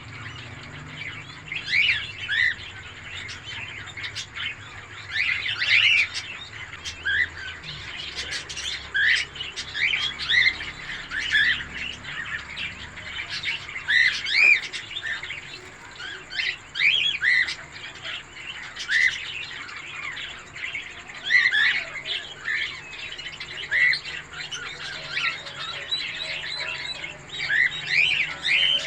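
Peafowl chick peeping: short, high, arched chirps, several a second, one after another.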